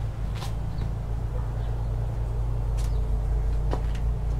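Steady low outdoor rumble, as of distant traffic or a running engine, with a few brief faint chirps.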